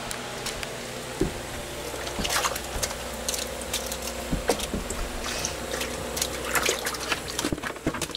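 Water splashing and sloshing in an ice-fishing hole as a fish is worked up through it, in a run of short splashes that grows busier near the end. Under it runs a steady mechanical hum.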